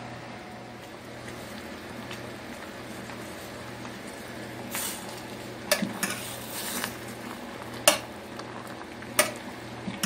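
Bangpung greens blanching in a metal pot of boiling water, bubbling steadily over a low hum as they are stirred. In the second half there are three sharp knocks against the pot.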